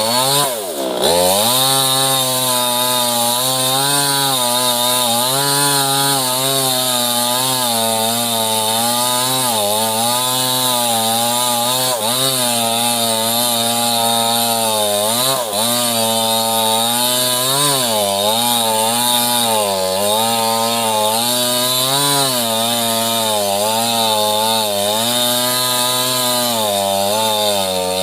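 Small chainsaw cutting sengon wood, its engine note wavering up and down as the chain loads and frees. About half a second in, the pitch drops sharply as it bogs and then climbs back up.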